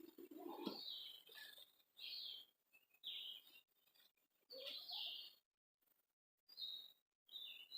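Small songbird chirping faintly in short, separate phrases roughly every second or so.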